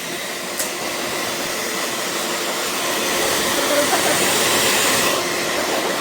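Handheld blow dryer running on freshly shampooed hair: a steady rush of air with a faint hum. It swells a little in the middle and eases back about five seconds in, with a brief click just after the start.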